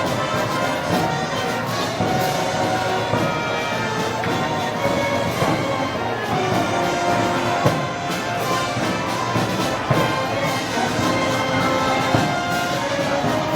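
A wind band playing brass-led Moros y Cristianos festival music, steady and full, with a few sharp percussion accents in the second half.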